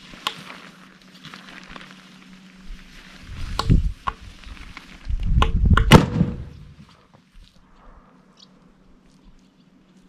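Tent being pitched: rustling and handling of fabric and poles, with several sharp clicks and knocks and two spells of heavy, muffled low thumping, about three and a half and five to six and a half seconds in.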